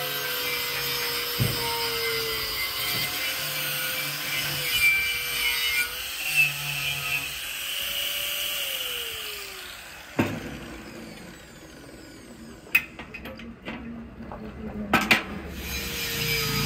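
A power tool's motor running under load, then winding down about ten seconds in. A few sharp knocks follow before it picks up again at the very end.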